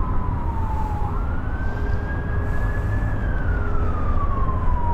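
Emergency-vehicle siren wailing in slow rise-and-fall sweeps: the pitch jumps up about a second in, climbs gradually, then falls slowly through the rest, over a steady low rumble.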